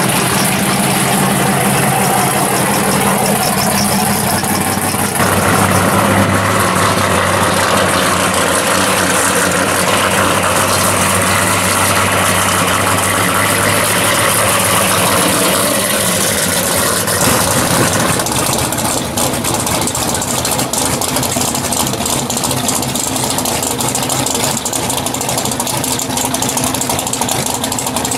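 Engines of modified muscle cars, among them a Monte Carlo SS, a Plymouth 'Cuda and a 1969 Chevelle, idling loudly as the cars drive slowly past one after another. The engine sound changes about 5 seconds in and again around 18 seconds in as a different car comes by.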